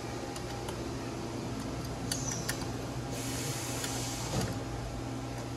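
Hand tools on steel bolts, a wrench and then a ratchet tightening engine-mount bolts on a motorcycle frame: a few light metallic clicks and a brief rasp about three seconds in, over a steady low hum.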